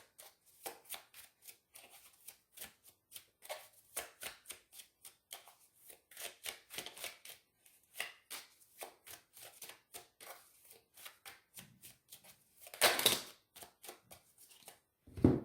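Tarot cards being shuffled and handled: a quick run of soft flicks and taps, with a louder rustle about thirteen seconds in and a short thump near the end.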